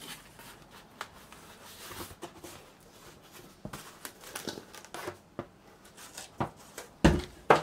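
Cardboard record mailer and vinyl album jacket being handled: scattered rustling and scraping as the record is slid out and held up. Two loud thumps come near the end.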